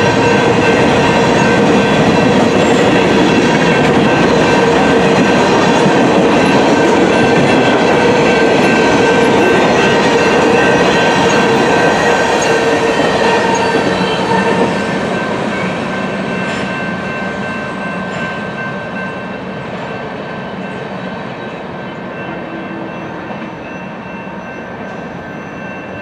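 Grain train's covered hopper cars rolling past on the rails, a dense steady rumble with clatter and a few steady high tones over it. About halfway through, the sound drops and fades as the train moves away.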